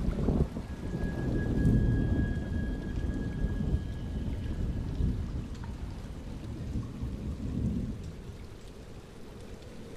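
A low, rolling rumble of noise, like thunder, that swells early and slowly fades toward the end. A faint, thin, steady high tone holds for a few seconds near the start.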